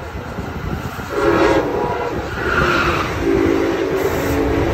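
NJ Transit multilevel double-deck coaches rolling past at close range, their wheels rumbling on the rails. Steady humming tones rise above the rumble from about a second in and again later.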